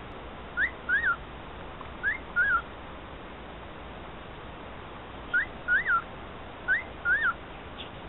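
Cockatiel whistling a short two-note phrase four times: a quick rising note, then a note that rises and falls.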